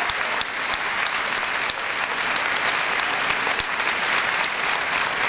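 Audience applauding steadily, a dense spread of hand clapping at the end of a song.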